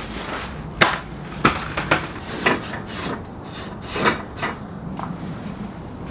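Wooden knocks and clatters as a pine board panel is handled at a table saw and the saw's metal rip fence is slid and set; about six sharp knocks, with the saw not running.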